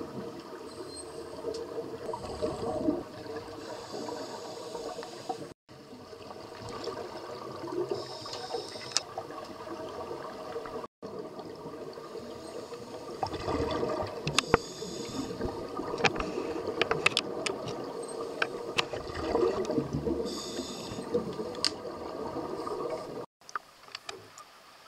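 Scuba divers breathing underwater, heard through the water: the regulator hisses on each breath and exhaled air bubbles up in gurgling rushes with small clicks, over a steady hum in the pool water. The sound cuts off sharply three times, and after the last cut it is much quieter.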